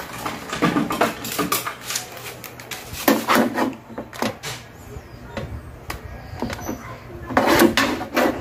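Irregular clicks and knocks of wires, connectors and a small equalizer circuit board being handled on a metal amplifier case, over a steady low hum. Brief snatches of voice come about three seconds in and near the end.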